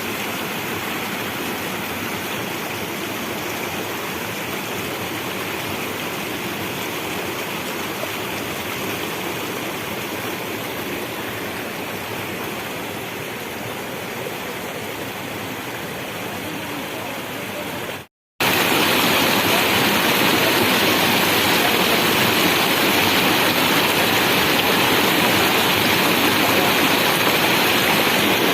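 Steady rush of fast-flowing, flood-swollen river water. About eighteen seconds in, the sound drops out for a moment and comes back louder.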